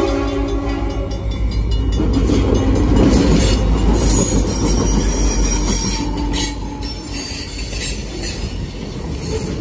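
Freight train passing close by at a grade crossing. The diesel locomotives' horn fades out in the first second or two, then the locomotives run past and the freight cars roll by with wheel noise on the rails, a little quieter after about seven seconds.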